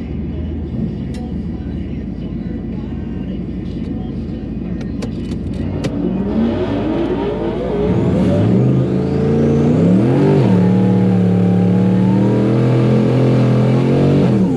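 Twin-turbo Ford Coyote V8 rumbling at low revs, then revving up about six seconds in. It climbs further, dips briefly, and holds at high revs for about four seconds before cutting off sharply near the end.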